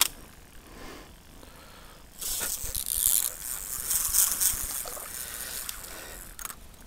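A trout caught on a crossbow fishing line thrashing and splashing at the surface of a shallow stream, starting about two seconds in, loudest in the middle and dying away near the end. A single sharp click comes right at the start.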